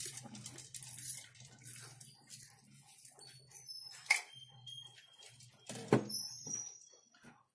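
Close-miked crackling and crunching of popcorn being chewed, over a low steady hum. Two sharper knocks come about four and six seconds in, the second as the metal-lidded tumbler is picked up.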